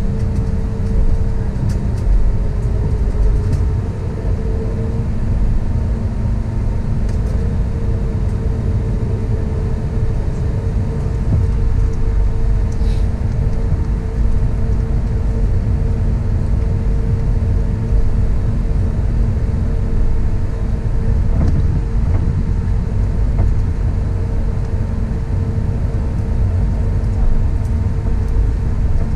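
Cabin noise of an Airbus A320neo taxiing: a steady low rumble of the engines and rolling gear, with a steady engine hum whose pitch shifts slightly a few seconds in.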